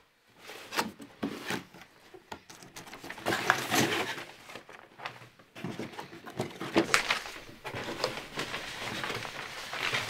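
Cardboard box being opened, its lid lifted off, and sheets of paper rustling and being shuffled, with a few sharp knocks.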